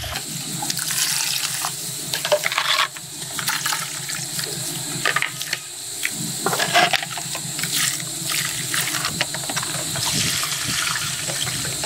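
Liquid sloshing and splashing in a plastic basin as a gloved hand stirs a mixture of molasses and warm water, with many small irregular splashes.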